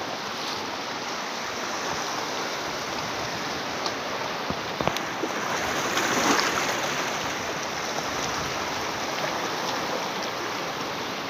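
Steady rush of a fast-flowing river over rocks, growing briefly louder about six seconds in, with a few faint clicks.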